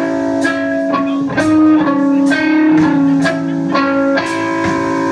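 Guitar music: an electric guitar picking single notes, roughly two a second, over sustained chords.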